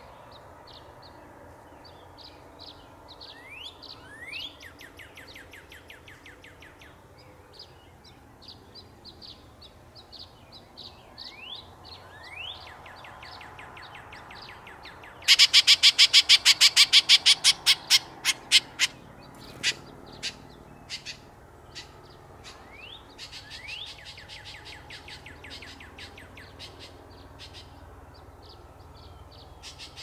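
Small birds chirping, with a few rising whistled notes. About halfway through, a pileated woodpecker strikes a log with its beak in a loud, rapid run of sharp knocks that slows into a few scattered single strikes.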